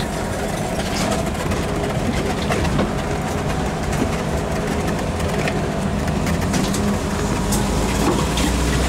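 Engine of a small off-road vehicle running steadily in second gear at a light, even throttle as it travels over slushy ground.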